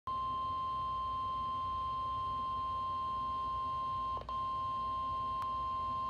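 NOAA Weather Radio 1050 Hz warning alarm tone through a Midland weather alert radio's small speaker: one steady, high single-pitch beep with a brief break about four seconds in. The tone signals that a warning broadcast follows, here a severe thunderstorm warning.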